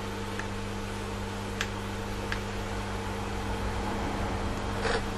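Electric fan heater running with a steady hum and hiss. Two faint clicks come about one and a half and two and a half seconds in.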